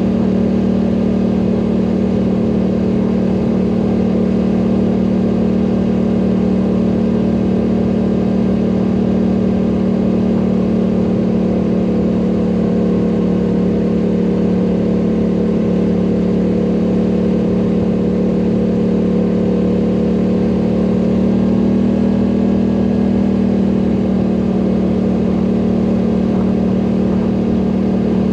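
ATV engine running steadily under load while riding uphill, its pitch stepping up slightly about two-thirds of the way through.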